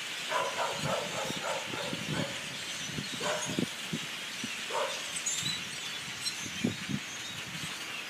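A huge flock of birds calling together: a steady mass of chatter with many short individual calls standing out from it.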